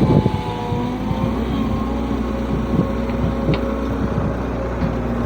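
Excavator's diesel engine running steadily, with a few short knocks scattered through, near the start and a little past halfway.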